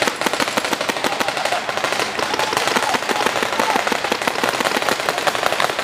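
Many paintball markers firing in rapid, overlapping volleys, a dense continuous crackle of pops.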